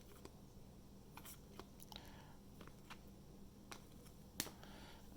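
Near silence with faint scattered clicks and ticks of trading cards being handled, the sharpest about four and a half seconds in.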